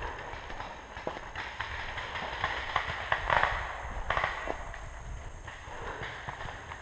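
Footsteps of a person running through woodland brush, rustling and crunching irregularly with scattered sharp snaps.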